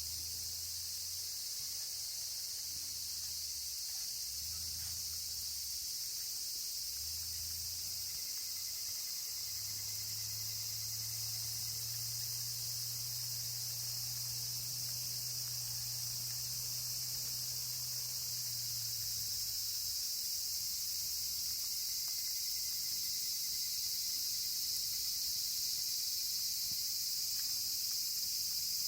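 Steady chorus of insects, crickets or similar, a continuous high-pitched shrilling. A low hum joins in from about ten seconds in for about ten seconds.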